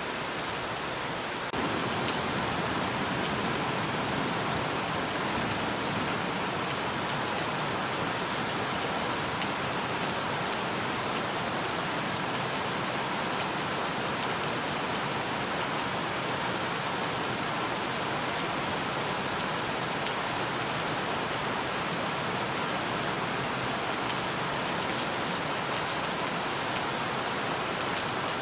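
Steady rainfall, an even hiss of many drops, which turns a little louder about a second and a half in and then holds steady.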